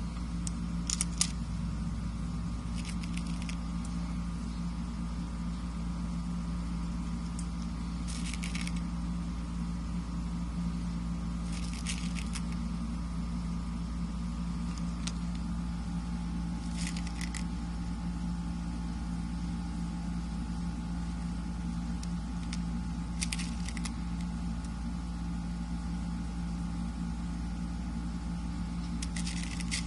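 A steady low mechanical hum runs throughout. About seven times, every few seconds, comes a short cluster of small light clicks as a CO2 pellet revolver is handled and its cylinder is turned and loaded with pellets.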